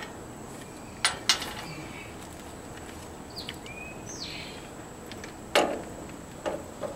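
A few sharp metal clicks and knocks from hay rake drive parts being handled: two about a second in and another near the end. A bird chirps briefly in the middle.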